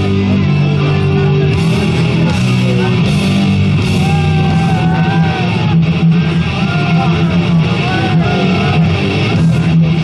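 Rock music with electric guitar, loud and steady.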